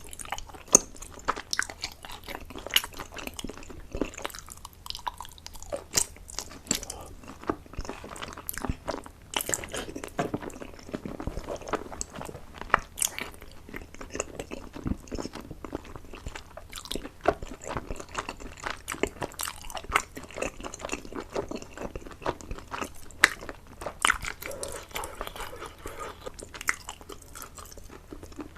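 A person chewing and biting food close to the microphone, with many quick wet smacks and clicks of the mouth throughout.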